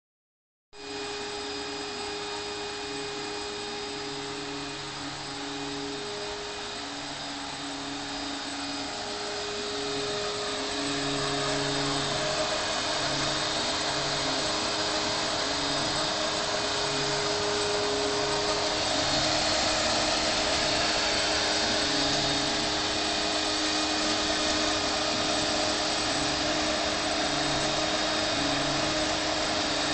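Homemade CNC milling machine cutting polystyrene foam: the spindle motor runs with a steady whirring noise, and beneath it low motor tones come and go in short stretches as the axes move. The noise grows louder over the first ten seconds or so.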